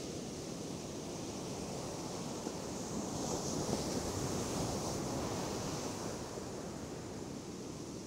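Steady rush of sea surf on the shore, with some wind on the microphone, swelling slightly about three seconds in and easing again after five.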